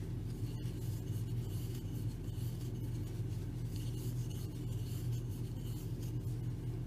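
Soft, faint rubbing of yarn drawn over a crochet hook and through the fingers as double crochet stitches are worked, over a steady low hum.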